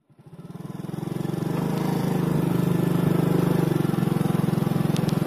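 Small motorcycle engine running steadily while the bike is ridden, heard close up with a rapid, even throb. It fades in over the first second or two.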